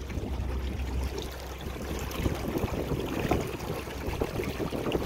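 Water churning and splashing along the side of a small boat under way at full speed on a transom-mounted trolling motor, over a steady low rumble.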